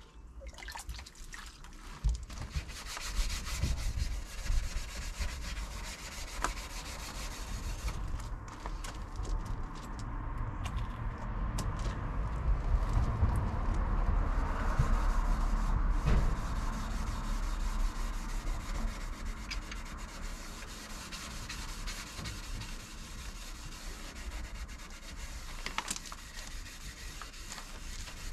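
Hand scuffing of the van's grille with a Scotch-Brite pad and scuff paste, keying the surface for primer: a continuous scrubbing rub that grows louder in the middle and then eases.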